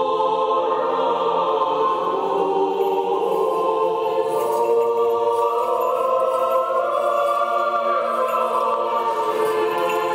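Church choir singing unaccompanied Orthodox liturgical chant in slow, sustained chords.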